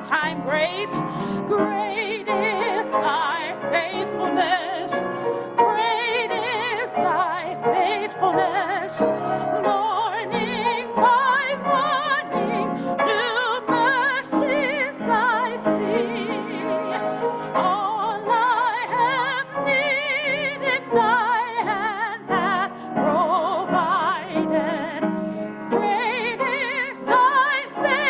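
Solo classical-style singing with strong vibrato, accompanied by piano.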